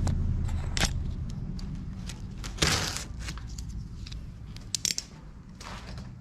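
Cardboard box being handled and torn open: a few sharp crunches and a longer tearing rustle about two and a half seconds in, over a low hum that fades away.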